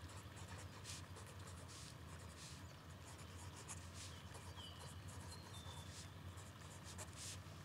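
Pencil scratching on notebook paper in quick, irregular strokes, over a low steady hum.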